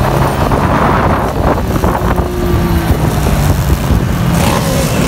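Small motorcycles running along a street in a group, heard from one of the bikes: a steady engine sound mixed with wind rushing over the microphone, with a few revs rising and falling near the end.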